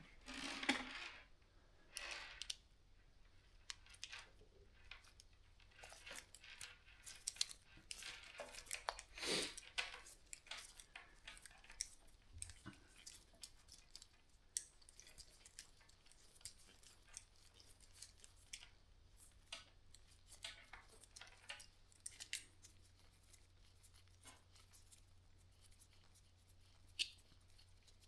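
Bicycle chain being shortened with a chain breaker tool: faint, irregular small metal clicks and chain rattle as the tool is worked to drive a pin out of a link. The clicks are busiest in the first ten seconds, then sparse, with one sharper click near the end.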